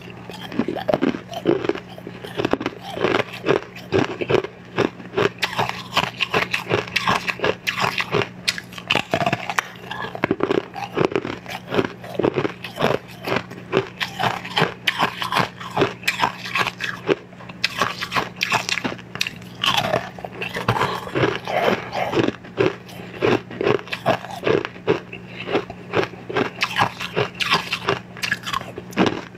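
Close-miked biting and chewing of pieces of translucent pink crystal candy, a dense, irregular run of crisp crunches and crackles.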